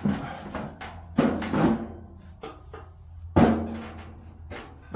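Irregular metallic knocks and clunks of the old Carrier Infinity ECM blower motor being handled and set down on a work table after being pulled from the blower wheel, the loudest knock near the end.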